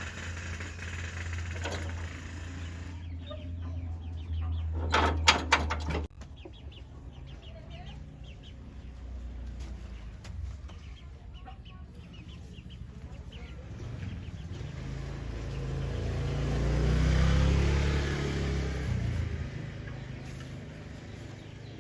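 Chickens clucking over a low steady hum that cuts off abruptly about six seconds in, just after a few sharp clicks. Later a low rumble swells up and fades away.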